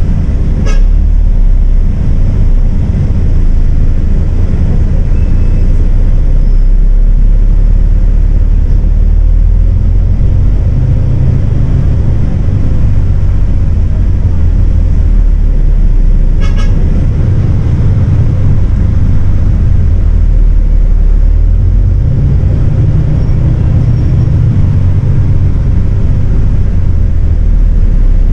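MAN 18.350 bus's diesel engine running heard from inside the cabin, its note rising and falling several times as it pulls along in traffic. Two short horn toots, about a second in and again about sixteen seconds in.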